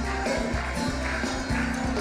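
Forró-style festa junina quadrilha music with a steady beat.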